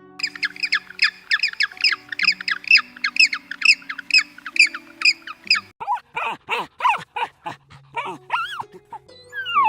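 Animal calls over soft background music: a fast series of short, high chirps, about four a second, then a slower series of lower calls that bend in pitch.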